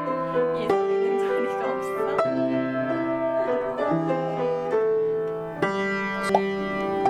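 Background instrumental music: a light melody of held notes over a steady lower accompaniment.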